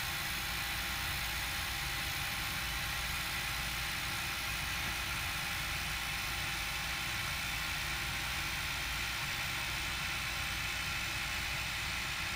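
Steady hiss of a mechanized TIG welding arc burning at constant current with no pulsing, with a faint steady hum under it.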